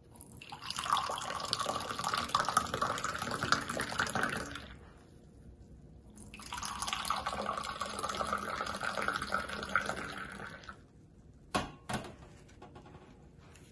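Tea poured in a thin stream from a Moroccan teapot into a glass, twice: two pours of about four seconds each, the first into one glass and then, after a short break, into a second. Two sharp knocks close together near the end.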